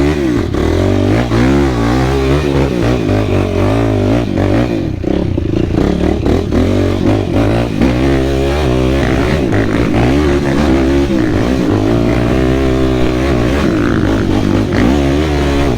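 Single-cylinder four-stroke ATV engine of a Yamaha YFZ450R being ridden, its pitch rising and falling over and over as the throttle is worked on and off.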